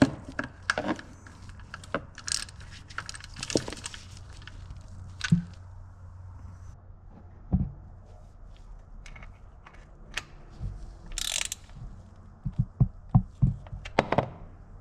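Irregular metallic clicks and clinks of hand tools working on metal as the oil drain bolts are reinstalled, over a low steady hum; a quicker run of clicks comes near the end.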